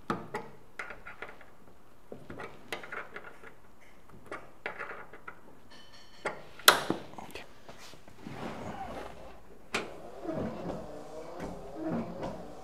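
Metal clicks and knocks as hand tools adjust the wiper arms on a 1957 VW Oval Beetle's windscreen, with one loud clank about halfway through. Near the end a wavering mechanical whir begins as the Beetle's 6-volt wiper motor sweeps the newly set wipers.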